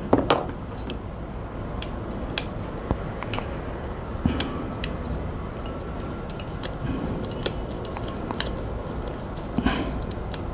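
Scattered small clicks and taps of a plastic computer mouse and small tools being handled while the mouse is taken apart to reach its screws.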